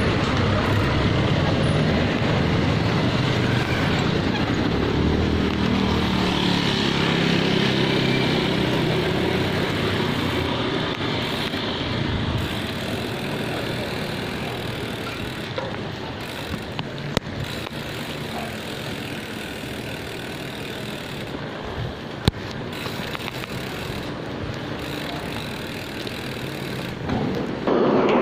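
Engine, road and wind noise of a vehicle riding along a city street, louder for the first ten seconds or so, then easing to a lower level, with a couple of short sharp clicks later on.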